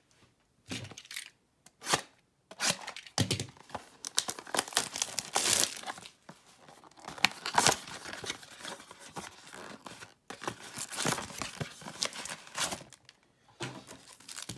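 Packaging of a baseball card blaster box being torn open and crinkled: a run of irregular rips and crinkles with a few short pauses.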